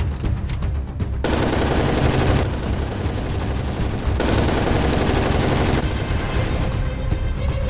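Two long bursts of automatic rifle fire, the first about a second in and the second a little after four seconds, over background music with a heavy low beat.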